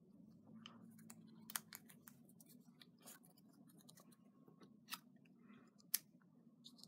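Faint handling of paper die-cut letters as they are picked up and set down on a card, a few soft clicks and light rustles, the sharpest about six seconds in, over a steady low hum.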